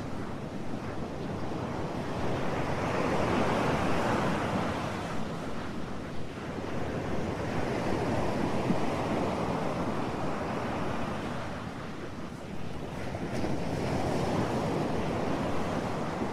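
Ocean surf: an even rush of wave noise that swells and falls back about three times, each surge lasting several seconds.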